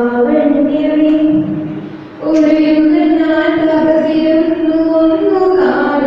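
A girl singing solo into a microphone in long, drawn-out notes, with a short break for breath about two seconds in.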